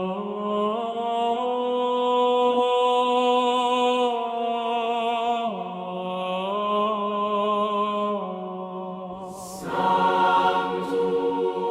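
Choir singing slow, long-held chords of a sacred Latin setting, the harmony shifting every few seconds, then swelling louder and brighter about ten seconds in.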